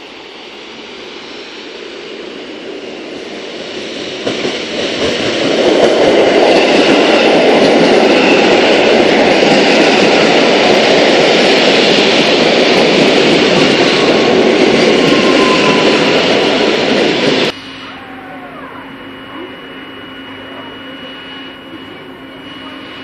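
EN57AKM electric multiple unit running along the platform: the rumble of wheels and running gear swells over several seconds to a loud, steady roar as the cars go by, with a faint brief wheel squeal partway through. The roar cuts off suddenly about 17 seconds in, leaving a quieter steady hum beside the standing unit.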